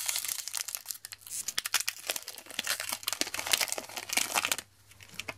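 Magic: The Gathering booster pack's foil wrapper crinkling and tearing as it is ripped open by hand, a dense run of crackles that stops about four and a half seconds in.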